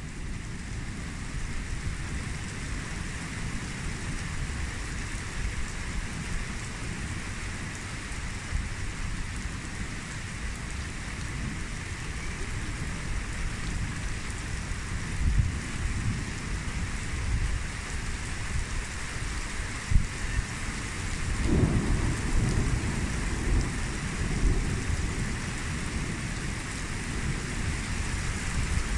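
Steady rain falling in a thunderstorm, with low thunder rumbling in several swells, the longest about two-thirds of the way in. A single sudden sharp knock comes just before that rumble.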